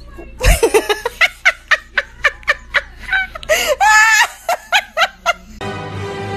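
A person laughing in a long run of short, quick bursts of about four a second, with a low thump about half a second in. Music comes in near the end.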